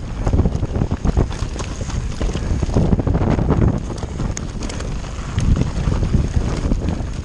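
Kona mountain bike descending a rough, rocky trail at speed: tyres crunching and clattering over loose stones and the bike rattling with each hit, under heavy wind rush on the microphone.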